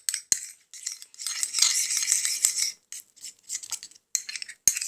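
A spoon scraping and clicking against a small bowl as runny shampoo is stirred and pushed around for slime. There are separate clicks, and a longer continuous scrape between about one and three seconds in.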